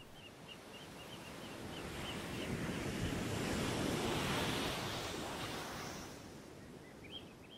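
Ocean surf: a single wave swells up, peaks about four seconds in, and fades away again. A row of faint high chirps sounds in the first couple of seconds.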